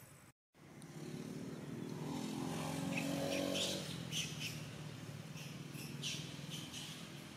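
A passing motor vehicle: its engine rises over a couple of seconds, then slowly fades, with a few light crackles over it. The sound drops out for a moment near the start.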